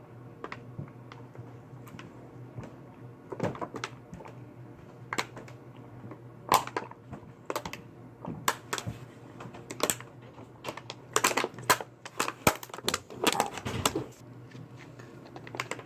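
Water being chugged: irregular short gulping clicks and bottle handling, coming faster from about ten seconds in, over a low steady hum.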